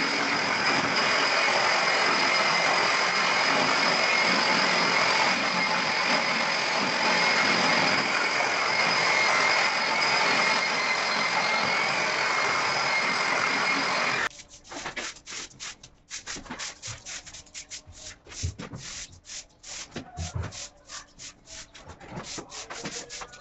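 Hand-held angle grinder with a polishing pad running steadily against a terrazzo floor: a high motor whine over a grinding rub. It cuts off suddenly about fourteen seconds in, leaving faint scattered taps and shuffles.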